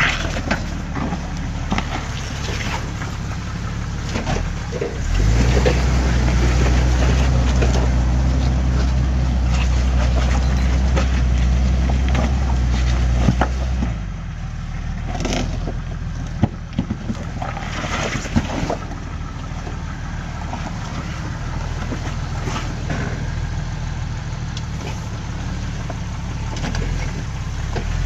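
Jeep Wrangler TJ's engine pulling up a steep trail of loose rocks. It runs steadily, then about five seconds in goes up to a higher, louder pitch and holds there for about nine seconds before easing back. Short knocks and crunches of tyres on rock come throughout.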